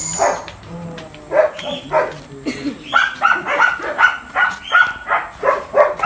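A dog barking in short yaps: a few scattered barks at first, then a quick, even run of about three a second from about halfway on.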